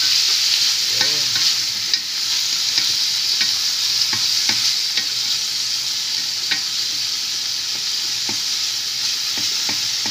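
Onion, garlic, ginger and tomatoes sizzling in hot oil in a pan while being stirred, with irregular clicks and scrapes of the utensil against the pan. The tomatoes are being sautéed until they soften.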